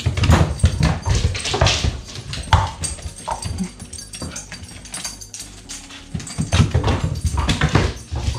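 A dog's paws thudding rapidly on wooden stairs as it races up and down after a thrown ball, loudest in a run at the start and another near the end.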